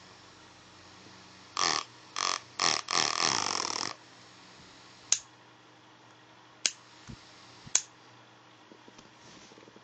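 A small battery-powered USB fan's motor whirring in four short bursts that wind down, followed by three sharp clicks.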